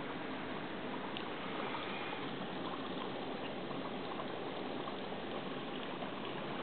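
Steady bubbling, trickling water sound of an aquarium fish tank screensaver, like an air stream in a tank.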